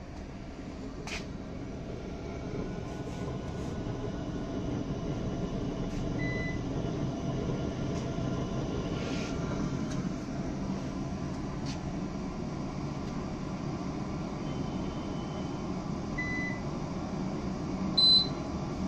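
REMI R-8C BL benchtop laboratory centrifuge spinning up toward its set 4500 RPM. Its motor and rotor hum grows louder over the first few seconds, then holds steady. A short high beep sounds near the end as it reaches 4500 RPM.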